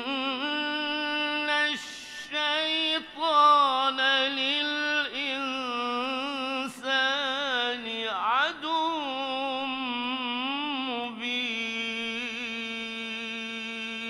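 A man reciting the Qur'an in melodic chant into a microphone, drawing out long held notes with wavering ornamental turns and a quick sweeping run about eight seconds in.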